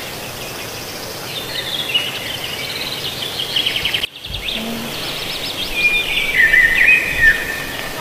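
Stream water rushing and splashing over rocks, a steady rush, with birds chirping and trilling above it. The sound drops out for a moment about four seconds in.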